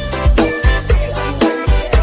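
Dance music with a heavy, regular bass beat, played loud through a large outdoor sound system during a sound check.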